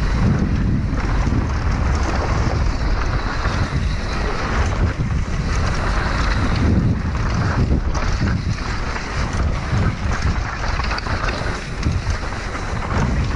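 Heavy wind rumbling on the microphone of a downhill mountain bike descending dirt trail at speed, mixed with knobby tyres rolling over dirt and many short rattles and knocks from the bike over rough ground.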